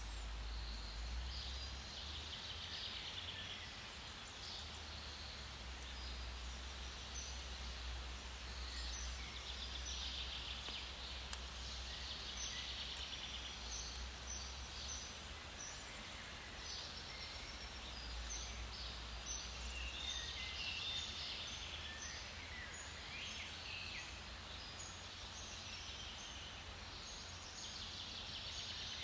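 Several birds calling and singing in forest, a continual scatter of short high chirps and trills, over a steady low rumble.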